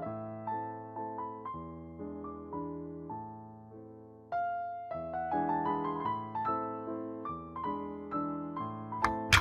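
Background piano music: slow single notes and chords, each fading away after it is struck. The music drops out briefly about four seconds in, and a short sharp click sounds near the end.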